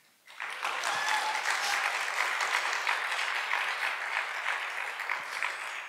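Audience applauding, starting a moment in, holding steady and dying away near the end.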